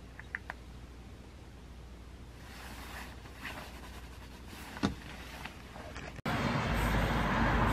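Quiet room with a few small clicks and rustling as the camera is handled, and one knock about five seconds in. About six seconds in, it cuts suddenly to much louder street noise: a steady traffic rumble outdoors.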